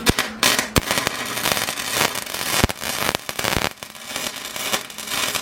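Eastwood 135 MIG welder's arc crackling and spattering as a bead is run, with frequent sharp pops; it cuts off abruptly about five seconds in as the trigger is released.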